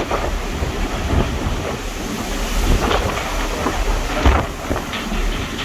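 Strong wind buffeting the microphone aboard a ferry in a storm at sea, a loud deep rumble with irregular gusts.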